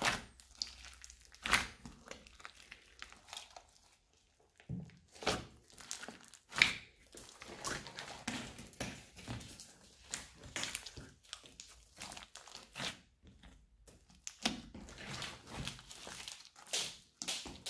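Hands kneading, squeezing and pulling apart a large mass of mixed old slime and clay: irregular crackles, pops and squelches, with a brief pause about four seconds in.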